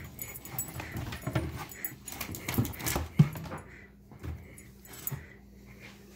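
A dog whining softly while it paws at a fish tank, with a few sharp taps, mostly in the first half, as its paw or claws hit the glass. A faint steady low hum runs underneath.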